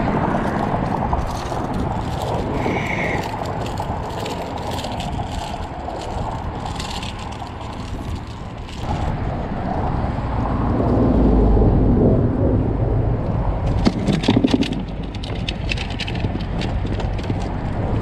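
Steady low rumble of traffic on the road bridge overhead, swelling once as a vehicle passes about eleven seconds in. A few sharp clicks and knocks come a few seconds later.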